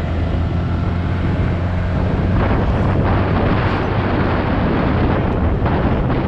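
Heavy wind noise buffeting a helmet-mounted GoPro Hero 7's microphone with no wind-slayer foam fitted, on a moving motorcycle, with the motorcycle engine's low hum underneath. The wind noise grows louder about two seconds in.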